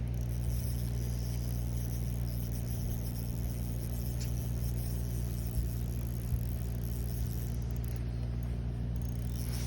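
A steady low mechanical hum with several fixed low tones, unchanging throughout, over a faint hiss, with a couple of small knocks about halfway through.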